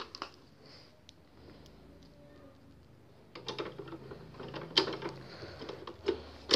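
Black ink cartridge being pushed and seated into the HP Deskjet 1112's print carriage: a click at the start, then after a few quiet seconds a run of hard plastic clicks and knocks, the loudest about halfway through and at the end.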